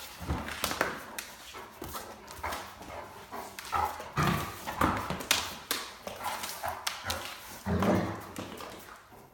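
Great Dane puppy romping on a hard tile floor, her paws and claws clattering and thumping in quick irregular steps, with short grumbling woofs, the talkative noises of a dog inviting play, about halfway through and again near the end.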